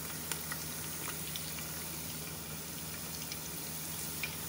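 Sliced onions and whole spices sizzling steadily in hot oil in a pot, with scattered small crackles.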